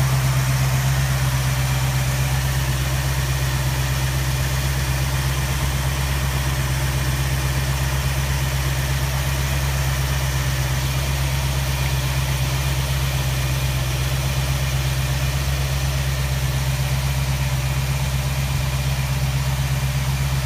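Carbureted V8 engine of a 1977 Ford truck idling steadily with an even, low note.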